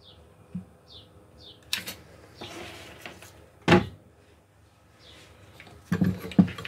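Workbench handling noises: a few short high chirps, then a sharp knock a little under four seconds in as the soldering gun is set down, and a run of clicks and rattles near the end as the cast-iron bench vice is loosened.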